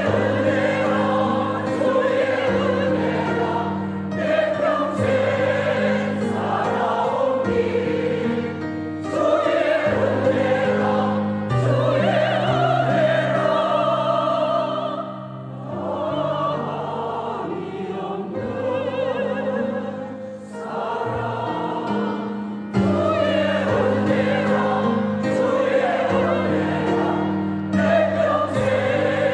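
Church choir singing a slow hymn in held, wavering notes, with a softer stretch past the middle before the full choir comes back in near the end.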